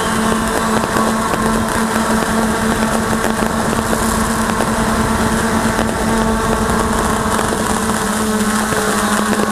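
Ghostdrone 2.0 quadcopter's motors and propellers whirring steadily, close to its on-board camera's microphone. Faint pops of fireworks can be heard beneath the whir.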